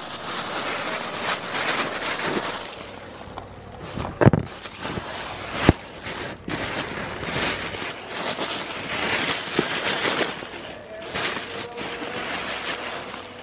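Close rustling and handling noise right at the microphone, as if cloth or plastic is brushing over it, with two sharp knocks about four and five and a half seconds in.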